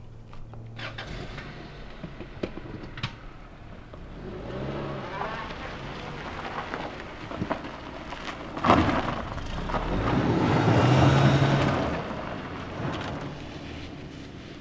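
A car driving off across a dirt lot: its engine running and its tyres crunching over dirt and gravel. There is one sharp loud crunch just past halfway. The sound is loudest a couple of seconds later, then fades as the car pulls away.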